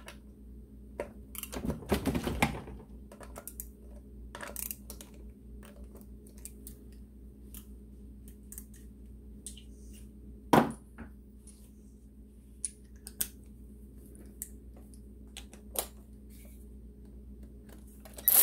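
Hand tools and small metal engine parts clinking and knocking on a workbench over a steady low hum, with a rattling run of clicks about two seconds in and one sharp knock about halfway through.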